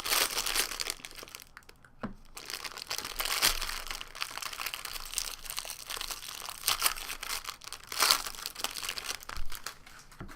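Plastic wrapper of a jumbo trading-card pack being torn open and crinkled by hand, with a short lull about two seconds in.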